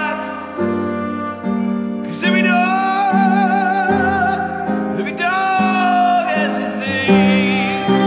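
Music: steady keyboard-like chords changing about once a second under a high melody held in long notes with wide vibrato.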